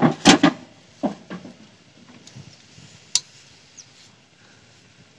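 A few faint clicks and light knocks over quiet room tone, with one sharp click about three seconds in.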